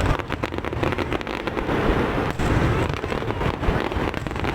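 Fireworks display going off: many pops and crackles in quick succession over a continuous rumble of bursts, with crowd noise underneath.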